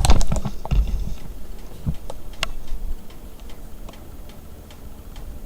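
A pot of rice and water knocking against a stovetop burner as it is set in place, followed by a few scattered, light clicks.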